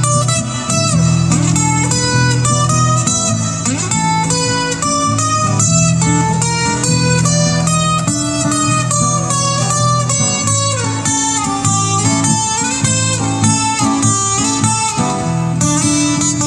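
Acoustic guitars playing an instrumental break: strummed chords under a picked lead line with some bent, gliding notes.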